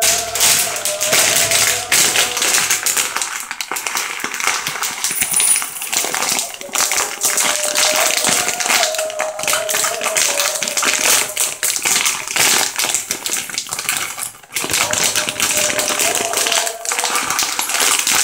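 Dry green lentils poured from a plastic packet into a ridged glass bowl: a dense, continuous patter of lentils hitting glass and each other, with the packet's plastic crinkling. The pour pauses briefly about two-thirds of the way through.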